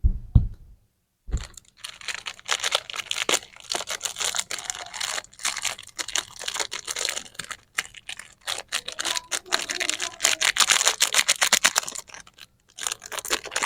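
Plastic candy packaging being handled and torn open, a dense run of crinkling crackles and clicks, pausing briefly about a second in and again near the end.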